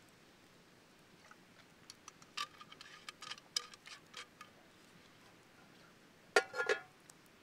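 Wood campfire crackling with scattered sharp pops. Near the end, a metal cup knocks twice in quick succession with a brief ring.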